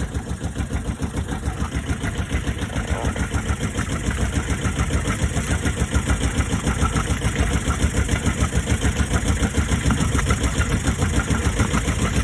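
Bukh DV8 single-cylinder marine diesel idling with a steady, rapid, even chug. It is running freshly restarted after more than four years unused.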